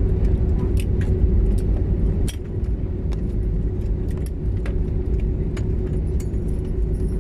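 Airliner cabin noise during landing: a steady low rumble with a constant hum, and frequent light rattling clicks of cabin fittings. The rumble eases slightly about two seconds in.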